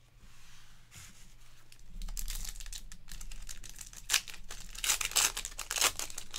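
A 2023 Panini Elite Extra Edition Baseball foil card pack being torn open and crinkled by hand. The wrapper crackles and rustles in a quick run of bursts, quiet at first and louder from about two seconds in.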